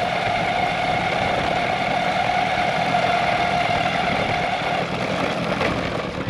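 Ecomobl M24 AWD electric skateboard under way: a steady high motor whine over rough wheel and wind noise. The whine fades out about five seconds in.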